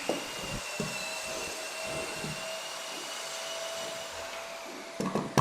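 A small electric motor running steadily with a whine for about five seconds, then stopping, with a sharp click near the end and a few soft knocks underneath.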